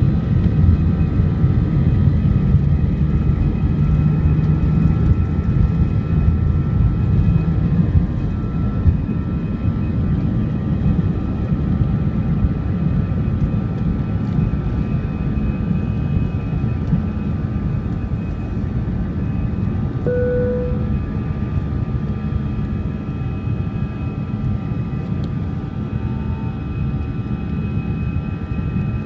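Airliner engines at takeoff power heard inside the cabin: a loud, steady rumble with a steady whine on top, a little louder for the first eight seconds or so. A brief tone sounds about twenty seconds in.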